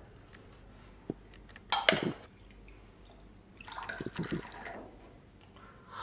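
Coffee being brewed by hand: a sharp click about a second in, a short splash of liquid just before two seconds, then a longer, softer trickle of liquid around four seconds.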